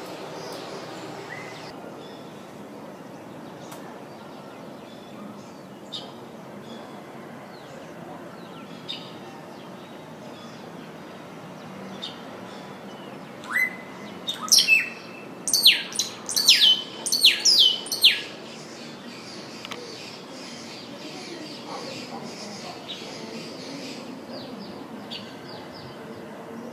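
Scrub blackbird singing: about halfway through, a run of loud whistled notes that each sweep sharply upward, eight or so in quick succession over about four seconds. A few faint, short bird calls come before and after.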